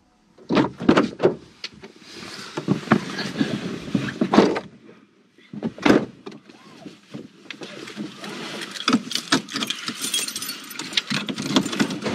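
Handling noises inside a stationary car: knocks, clicks and clothing rustle as people settle into their seats and the dashboard camera is knocked into place, with a seatbelt pulled across and fastened.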